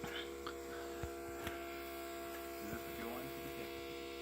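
Faint, steady electrical hum, with a few light clicks and knocks over it.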